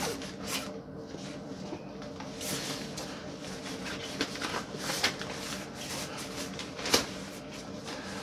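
Handling noise as a crossbow is worked into a padded soft case: the case's fabric rustling, with scattered knocks and clicks of the crossbow against it, the sharpest a little before the end.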